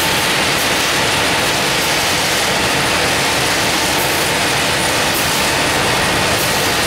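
Industrial continuous nut-frying line running: a steady, loud machine noise with a faint high whine, with no beats or knocks in it.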